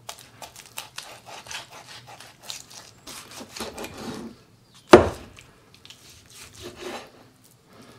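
Cleaver cutting through raw turkey meat along the ribcage on a cutting board: a run of faint scraping, crackling strokes, then one sharp knock about five seconds in, and a few more faint strokes.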